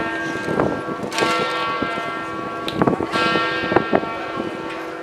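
Church bell tolling, struck about every two seconds, each stroke ringing on into the next, with a few short knocks in between.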